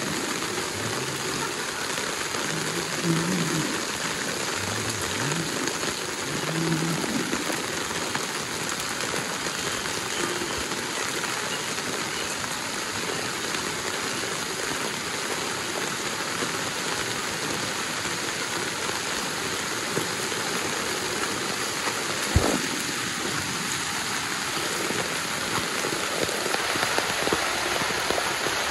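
Heavy rain pouring steadily onto a waterlogged street. Faint voices sound in the first few seconds, and a single sharp knock comes about two-thirds of the way through.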